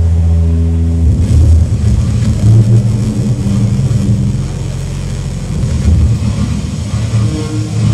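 Loud experimental electronic music from a live set over a PA: a deep sustained bass drone that, about a second in, gives way to a dense, churning low rumble.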